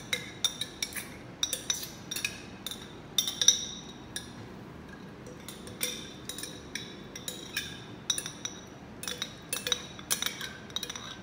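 A spoon clinking and scraping against the inside of a glass jar, scooping out the last of its contents: many quick, irregular clinks, each with a short high ring.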